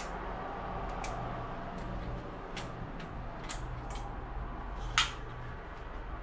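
Scattered light clicks and taps from grow-light hanger hooks and fittings being handled, with one sharper click about five seconds in, over a steady low hum.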